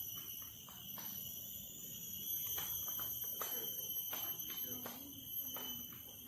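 A steady high-pitched insect drone, with faint voices and a few light clicks.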